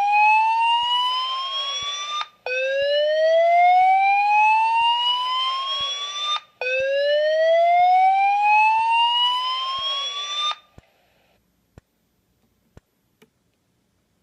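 Gentex SSPK24WLPR fire alarm speaker sounding a whoop evacuation tone: rising sweeps of about four seconds each, three in all with the first already under way, that stop suddenly about ten and a half seconds in, followed by a few faint clicks.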